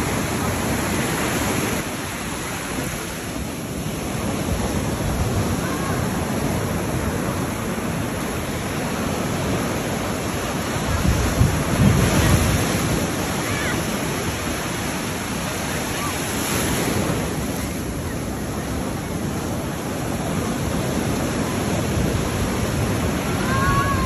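Ocean surf breaking and washing up the beach in steady waves, with wind buffeting the microphone. A wave breaks louder about halfway through.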